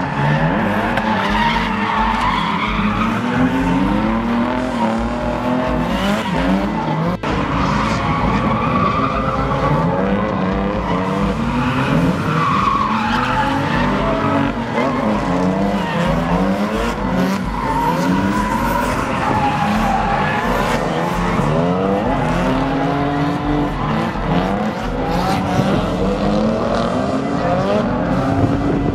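Drift cars sliding at speed: engines repeatedly revving up and falling back, over the constant skidding screech of their rear tyres.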